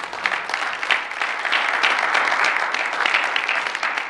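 Small audience applauding, many hands clapping at once.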